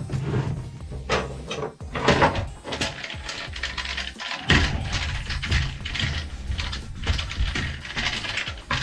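Microfiber cloth wiping a plastic helmet part, with irregular scuffs and light knocks as the plastic piece is handled and rubbed.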